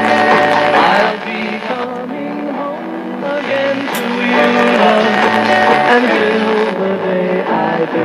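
Music playing from the speaker of a 1965 Chevrolet Delco AM push-button car radio, model 986099, tuned to an AM station.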